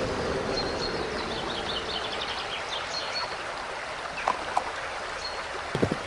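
Running-water ambience with small birds chirping, and two short clicks about four seconds in.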